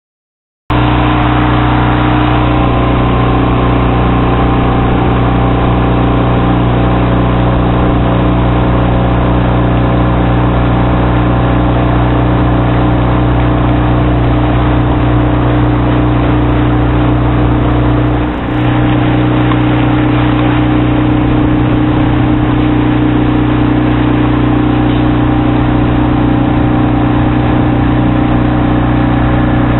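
Small outboard motor running steadily at speed, driving a boat through choppy water. It starts abruptly about a second in and dips briefly once about two-thirds of the way through.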